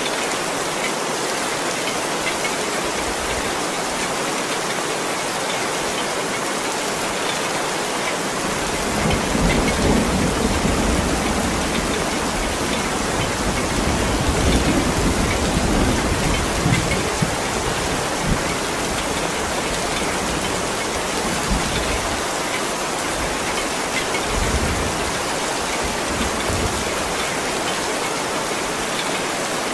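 Heavy rain falling steadily. About nine seconds in, a long low rumble of thunder swells up, peaks again a few seconds later and dies away after several seconds, with fainter rumbles later on.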